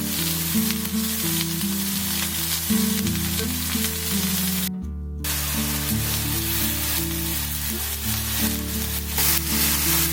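Mushrooms and salmon frying in butter in a pan, sizzling steadily, with a brief break in the sizzle about halfway through.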